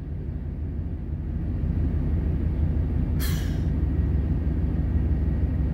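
Low, steady engine rumble heard from inside a truck cab, growing slightly louder, with a brief hiss about three seconds in.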